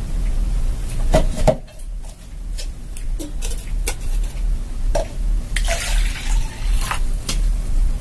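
Kitchen clatter: a few scattered knocks and clinks of dishes or utensils, with a rush of hiss for about a second past the middle, over a steady low hum.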